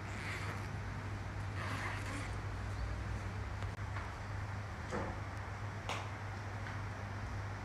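Steady low hum under an even background hiss, with a few faint clicks.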